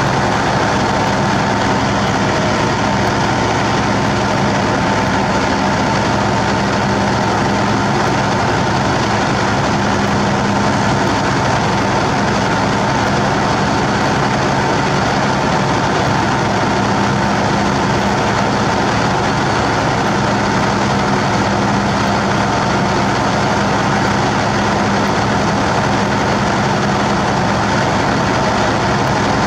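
Sakai ER501F road milling machine's diesel engine running steadily at an even pitch, heard from right on its engine deck beside the exhaust stack.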